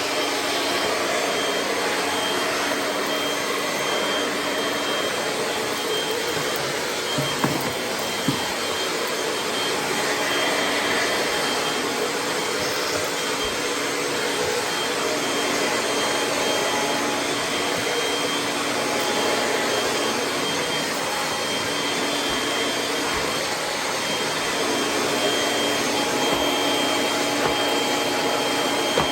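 Kirby G6 upright vacuum running steadily on a hard floor, a constant rushing motor sound with a steady whine. Two brief knocks come about seven and eight seconds in.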